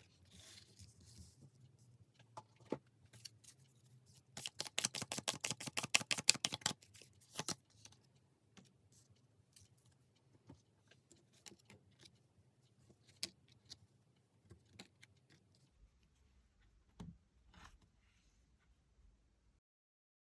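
Tarot cards being handled: scattered taps and card clicks, with a quick run of about ten snaps a second for some two seconds, about four seconds in, as the deck is shuffled or flicked through.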